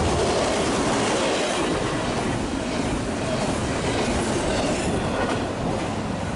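Freight train cars rolling past on the rails, a steady clickety-clack of wheels over the track joints.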